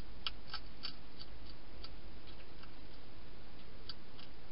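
Wild hedgehog chewing food inside a plastic feeding box: irregular crisp clicks, a quick run of them in the first second, then sparser, over a steady hiss.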